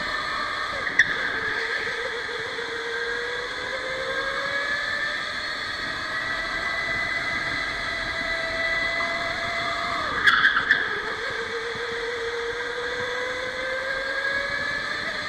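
Electric go-kart motor whining, its pitch climbing slowly as the kart gathers speed, falling sharply about ten seconds in and then climbing again. A sharp knock sounds about a second in, and a short cluster of knocks comes just after the pitch drop.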